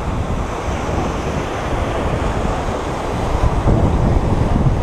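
Surf breaking and washing around the pier below in a steady rush, with wind buffeting the microphone in a low rumble.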